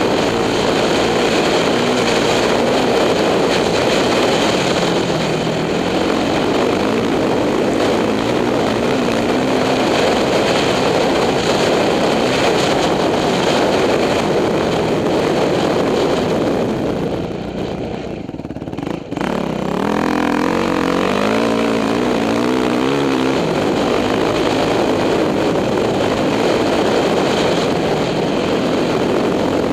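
2006 Yamaha YZ450F's single-cylinder four-stroke engine running under way on the trail. The engine note drops and quiets for about two seconds a little past halfway, then picks up again with revs rising and falling.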